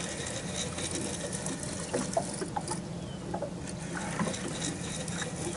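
Small waves lapping against the hull of an anchored boat, with scattered light ticks and knocks.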